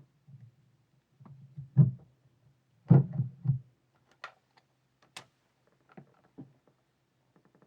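Camera being repositioned in its mount, handled close to the microphone: a loud knock about two seconds in, a quick cluster of heavy thumps about a second later, then a few light clicks.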